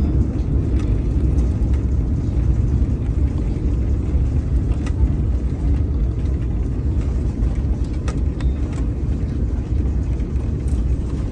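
Inside an airliner's cabin during the landing rollout: a steady, loud low rumble from the wheels on the runway and the engines.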